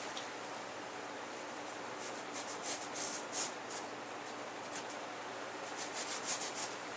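Sponge foam being cut and trimmed by hand: two runs of short scratchy strokes, one about two seconds in and another near the end, over a steady hiss.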